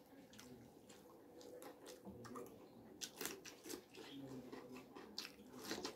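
A person chewing and biting food close to the microphone: soft, moist mouth clicks that become busier about three seconds in as a fresh mouthful goes in.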